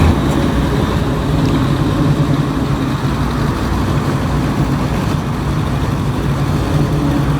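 A motor vehicle's engine running steadily at low revs.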